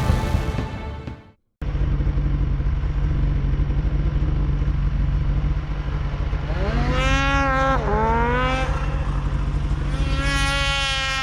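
Music fading out, then an engine running with a steady hum. About six seconds in, a higher buzzing tone rises and falls twice, as if the engine is being revved, and it rises again near the end.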